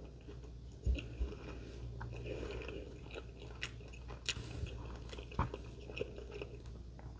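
A person chewing a mouthful of grinder sub sandwich, quiet mouth sounds broken by scattered small clicks and crunches.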